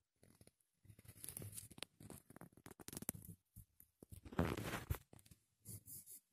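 Socks and clothing rustling and scuffing as the feet shift against each other and the carpet, in uneven bursts with small clicks, loudest about four and a half seconds in.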